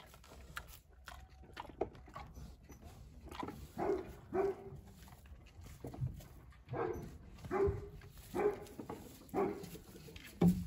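A deer giving a run of short calls, about six in the second half, each under half a second and spaced under a second apart, with one lower, louder sound near the end.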